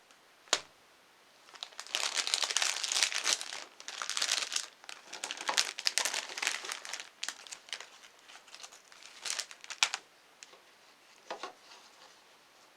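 Plastic packaging crinkling and crackling as it is handled, in dense irregular bursts for several seconds that thin out to a few scattered crackles near the end, after a single sharp click.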